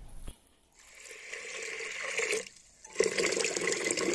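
Water pouring into an aluminium pressure cooker onto soaked split black gram, in two stretches: a softer pour from about a second in, a brief pause, then a louder pour near the end.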